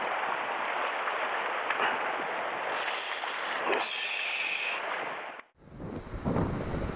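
Sea water washing and splashing against shore rocks, a steady hiss. About five and a half seconds in it cuts off abruptly and gives way to wind buffeting the microphone, a low rumble.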